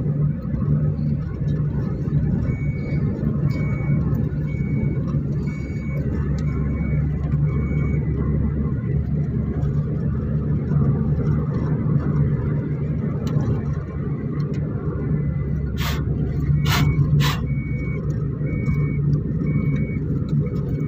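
Steady cabin noise of a moving car: engine hum and tyre rumble on the road. A faint high beep repeats about once every 0.7 seconds in the first half and again near the end, and three sharp knocks come about three-quarters of the way through.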